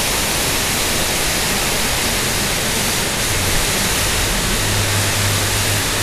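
Waterfall pouring, a steady, loud, even rush of falling water.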